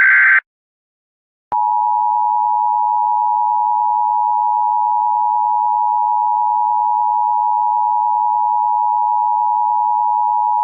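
Emergency Alert System broadcast tones: a short buzzy burst of SAME digital header data ends just after the start. About a second and a half in, the two-tone EAS attention signal begins, two steady tones sounding together and held unchanged for about nine seconds, cutting off sharply at the end.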